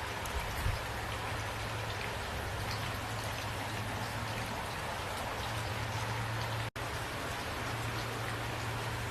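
Steady rain falling, with single drops ticking through the even wash and a steady low hum underneath. The sound cuts out for an instant about seven seconds in.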